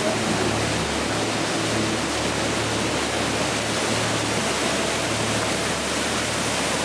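Steady, unbroken rush of white water from Vernal Fall and the Merced River cascading below it.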